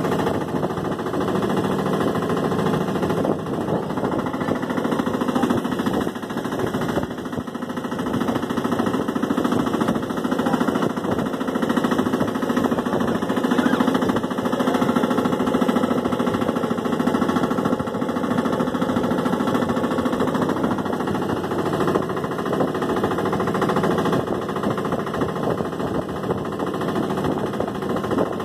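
A small wooden boat's engine running steadily as the boat moves across open water, a continuous rapid pulsing drone.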